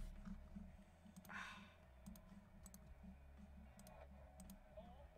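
Near silence over a low steady hum: a soft rustle a little over a second in, then a handful of faint, sharp clicks.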